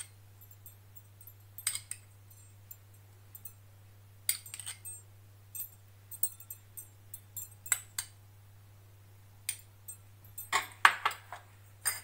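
Scattered light clinks and taps of a spoon against a glass bowl and a steel cake plate as sugar syrup is spread on a sponge cake layer, with a quick cluster of clinks near the end. A faint steady low hum runs underneath.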